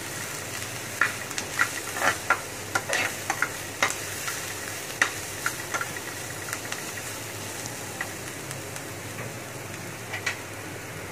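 A spatula stirring and scraping shredded chicken, onion and green chilli in a metal frying pan over a steady frying sizzle. Irregular clicks of the spatula against the pan come thickest in the first few seconds, then thin out.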